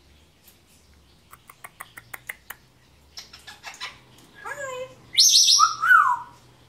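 African grey parrot vocalizing: a quick run of sharp tongue clicks, then chirps and a short whistled call, ending in a loud harsh squawk and a whistle that rises and falls.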